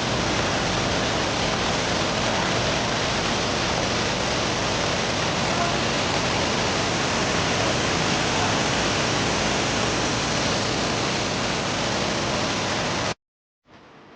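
Waterfall's falling water rushing, a steady, loud, even wash of sound, cutting off abruptly about 13 seconds in.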